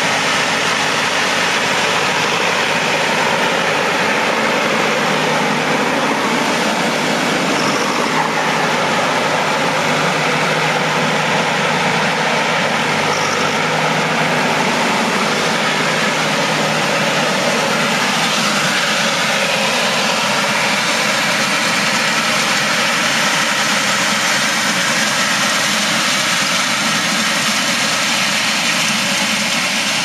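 Fendt 312 Vario tractor's four-cylinder diesel engine running steadily under load while pulling a pneumatic seed drill through the field at working speed.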